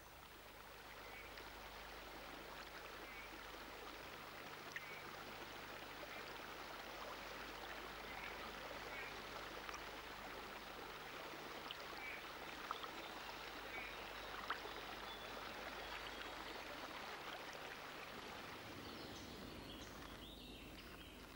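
Shallow stream flowing over rocks, a steady, even rush of water, with a few faint short ticks scattered through it.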